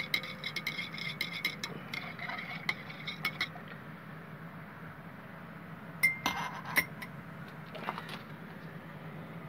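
Glass stirring rod clinking quickly against the inside of a glass beaker as gold-bearing acid solution is stirred after sulfamic acid is dosed in to denox it. The clinks stop about three and a half seconds in. Two louder, ringing clinks of glass on glass follow about six and seven seconds in.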